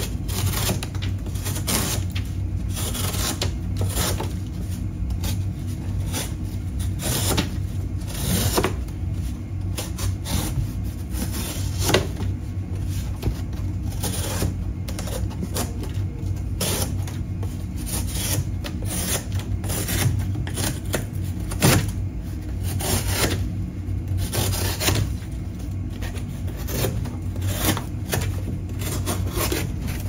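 Folding pocket knife slicing through corrugated cardboard in many short, irregular rasping strokes, with the cardboard rustling and cut pieces dropping into a plastic-lined bin. A steady low hum runs underneath.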